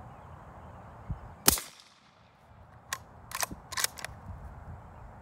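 One pretty quiet suppressed shot from a cut-down Remington 700 bolt-action rifle in 300 Blackout firing subsonic 220-grain rounds, about a second and a half in. About three seconds in, a quick run of sharp metallic clicks follows as the bolt is worked.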